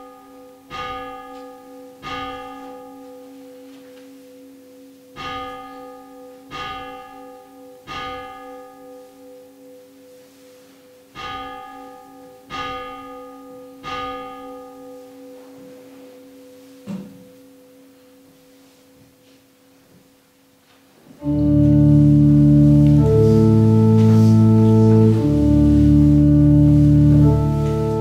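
Church bell striking slow single strokes in groups of three, with pauses between the groups and its hum lingering: the prayer bell's three-times-three strokes that follow the benediction. About two-thirds of the way through, a pipe organ starts playing loudly.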